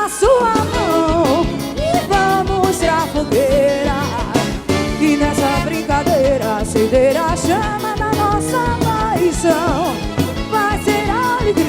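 Forró song played by a band, with a melody sung over a steady, driving beat.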